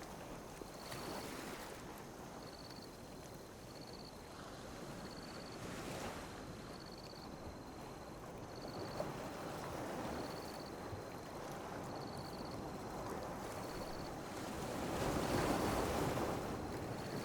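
Calm sea waves washing and lapping on a beach, swelling and ebbing, with a bigger wave surging in near the end.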